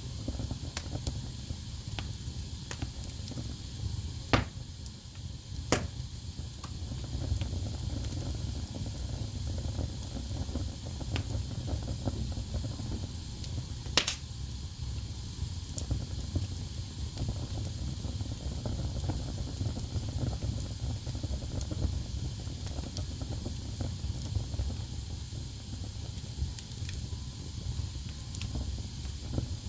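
Wood fire burning in a fireplace: a steady low rumble of flames with a faint hiss, scattered small crackles, and three louder sharp pops, two of them about four and six seconds in and the loudest near the middle.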